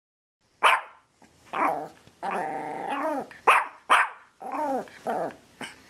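A dog barking in a quick irregular series of sharp barks, with one longer drawn-out bark about two seconds in.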